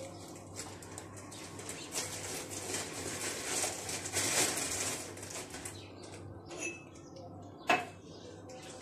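Plastic bag rustling and crinkling as it is handled, loudest around the middle, then a single sharp knock near the end as a drinking glass is set down on the counter.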